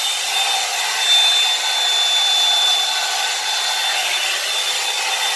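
Revlon One-Step hair dryer brush running steadily, blowing air with a constant whine, while it is worked through the hair.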